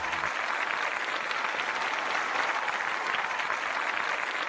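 Steady applause, a dense patter of many hands clapping; a low musical note from before cuts off just after the start.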